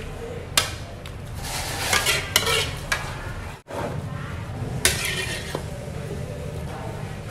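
Metal utensil clinking and scraping against a stainless steel hotpot, with a few sharp clinks and a busier stretch about two seconds in. Beneath this runs the steady bubbling of the simmering crab soup broth.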